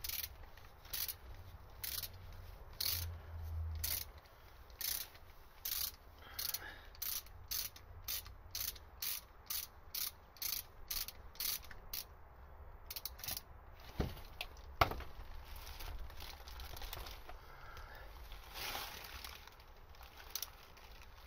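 Ratchet wrench clicking in repeated short strokes as it winds off the freshly loosened oil filter housing cap: about one stroke a second at first, then quicker, about two a second, stopping about twelve seconds in. Two single sharp clicks follow a couple of seconds later.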